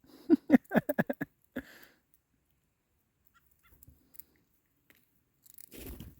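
A wild bird close to the microphone gives a quick run of short, harsh chattering calls lasting about a second, each call sliding down in pitch. Near the end comes a soft rustle.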